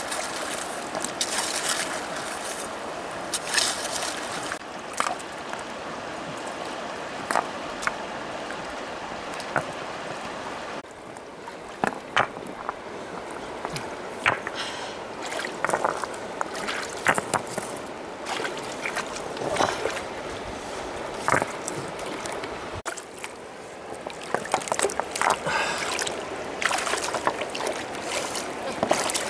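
Shallow river water sloshing and splashing as hands and a hoe work in it, with sharp knocks of smooth river stones being set against each other.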